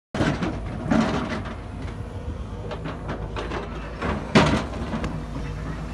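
Sumitomo hydraulic crawler excavator's diesel engine running steadily under load, with repeated clanks and knocks of rock and steel as it works stony ground; the loudest knock comes a little after four seconds in, another about a second in.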